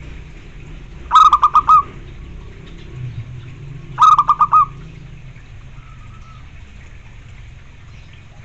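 Zebra dove (perkutut) cooing: two quick phrases of about five short clipped notes each, about three seconds apart.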